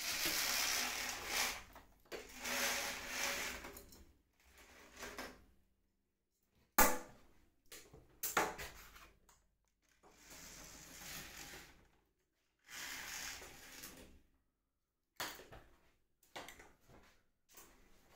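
Fabric roller blind worked by its bead chain: several bursts of the chain running through the side clutch as the blind rolls, each a second or two long, with two sharp clicks about halfway through.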